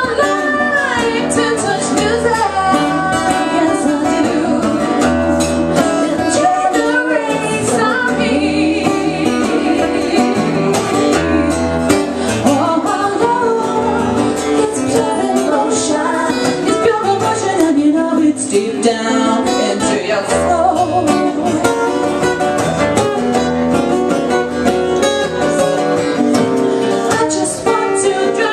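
Live acoustic folk-pop song: a woman singing lead over two strummed acoustic guitars, with a second female voice singing along.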